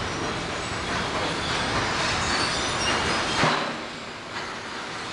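Steady rumbling and rattling of a vehicle rolling over a rough dirt track, with a single clank about three and a half seconds in, after which it goes a little quieter.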